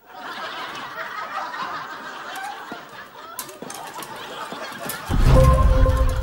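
Studio audience laughing, a dense crowd of laughs. About five seconds in, a sudden loud, deep boom cuts in over it.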